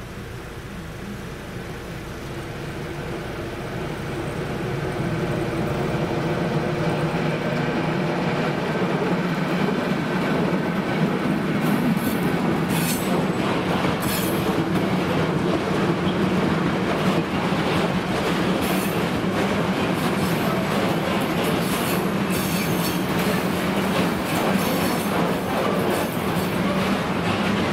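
Freight train with a diesel locomotive approaching and passing over a level crossing: the locomotive's engine grows louder over the first several seconds. Then a string of loaded covered hopper wagons rolls by with steady wheel clatter and high-pitched wheel squeals on the rails.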